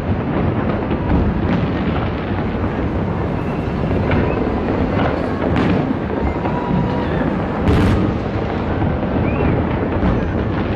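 Distant fireworks: a continuous rumble of booms and crackle, with a few sharper bangs, the loudest about three-quarters of the way through.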